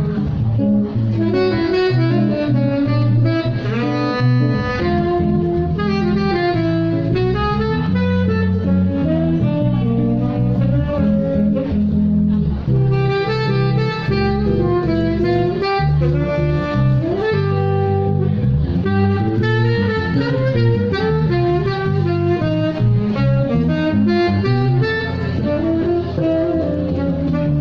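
Live jazz on saxophone with a plucked bass accompaniment: the saxophone plays a flowing, sliding melody over steady low bass notes.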